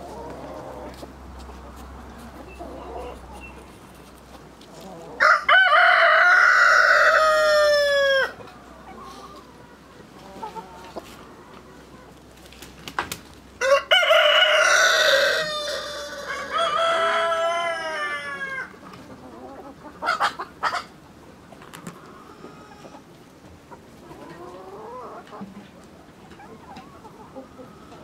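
Roosters crowing, with a long crow about five seconds in and two crows back to back around the middle, each falling in pitch at its end. Between the crows, hens cluck quietly and make short calls.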